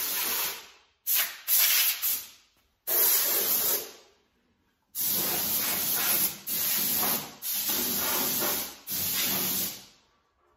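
Compressed-air blow gun blasting in about eight separate bursts of hiss, some a fraction of a second and the longest about a second and a half, each starting and stopping sharply.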